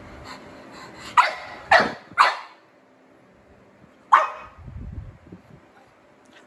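Pug barking: three quick barks in a row about a second in, then a pause and a fourth bark a little after the middle.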